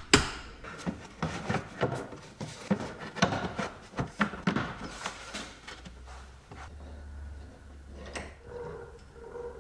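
Clatter of hand tools and plastic car parts being handled during reassembly: a run of short clicks, knocks and rubs, with a sharp click right at the start. It goes quieter with a low hum for a couple of seconds, and a few more clicks come near the end.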